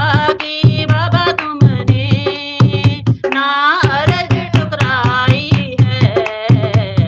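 A Hindi devotional bhajan being sung, with a dholak drum playing a steady rhythm underneath the melodic singing voice.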